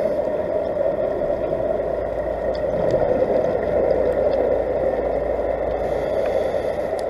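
Steady underwater noise picked up by a camera filming beneath the sea, an even dull hiss with no breaks.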